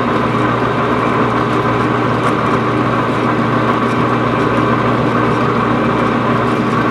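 Metal lathe running under power feed on a single-point threading pass, cutting a 14 TPI thread; a steady machine hum with gear whine, unchanging through the pass.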